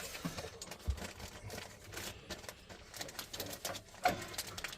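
Irregular small clicks and rattles of tools and small boiler parts being handled, with a low thump about a second in.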